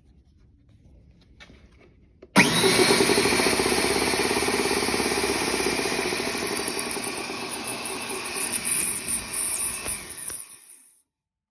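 DeWalt D55168 belt-driven air compressor starting abruptly about two seconds in and running with a loud, steady chugging and hiss, then shutting off near the end.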